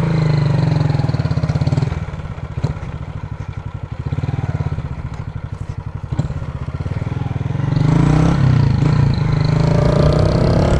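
Honda CG 150 Titan's single-cylinder four-stroke engine running as the motorcycle rides off. The engine eases back about two seconds in and picks up again, then grows louder near the end as the throttle opens.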